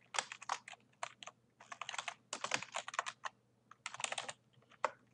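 Typing on a computer keyboard: quick, irregular keystrokes in short bursts with brief pauses between them.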